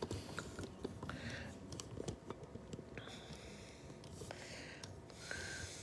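Faint scattered clicks and rustling from a laptop being handled and turned around, over quiet room tone.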